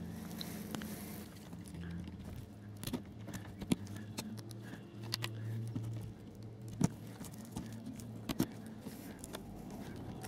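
Pliers clicking and tapping on metal rail-joiner fishplates as they are eased onto the ends of model railway rails: a handful of sharp little clicks scattered among quiet handling noise, over a low steady hum.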